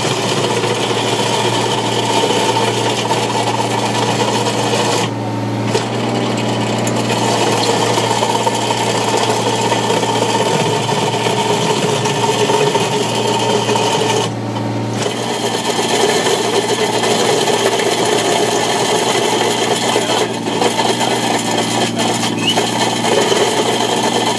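Simex PLB 200 excavator planer's 30 mm cutting disk grinding a narrow trench into asphalt, a steady loud rasping grind. It eases briefly twice, about five seconds in and around the middle, as the cut goes on.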